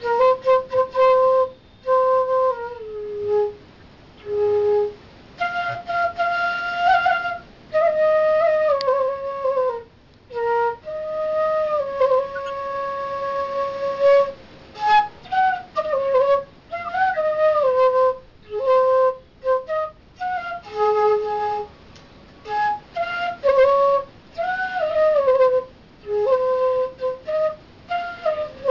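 Bamboo bansuri flute playing a slow solo melody: held notes joined by slides up and down in pitch, in short phrases with brief pauses for breath between them.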